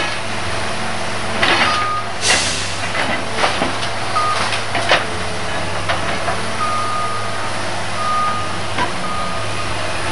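Heavy demolition excavator with a grab claw running steadily while it breaks up a house, with repeated sharp cracks and crashes of wood debris. A backup alarm beeps on and off, more often in the second half.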